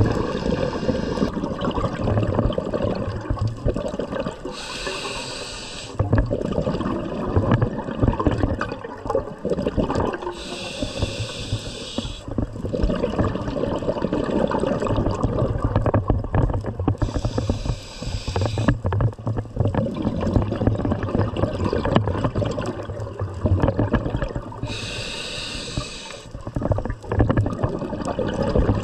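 Scuba diver breathing through an open-circuit regulator underwater: four hissing inhalations about six to seven seconds apart, each followed by a long, rumbling, gurgling exhale of bubbles.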